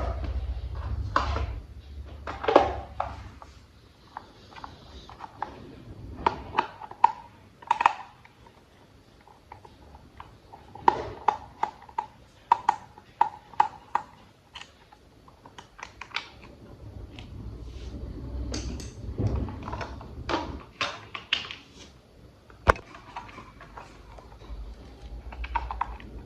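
Hard plastic toy parts clicking and tapping irregularly as they are handled and fitted together, with a low rumble of handling at times.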